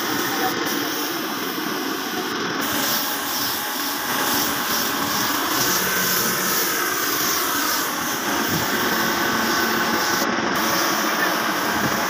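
Compressed-air spray gun hissing steadily as it sprays paint.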